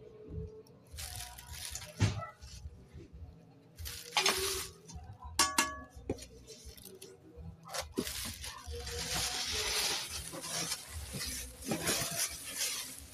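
Plastic bag packaging crinkling and rustling as it is handled around a new cooker's steamer tray and pot, in several bouts with the longest in the second half. A few sharp metal clinks come in between, one about five seconds in ringing briefly.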